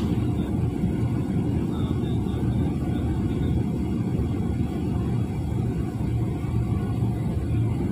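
Boeing 777 cabin noise heard from inside while taxiing: the GE90 engines at low taxi power give a steady low rumble and hum, with no change in level.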